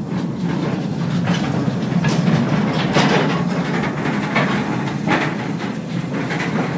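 Mine train cars rolling along the track through the tunnel: a steady low rumble with irregular clanks and clicks from the wheels and cars.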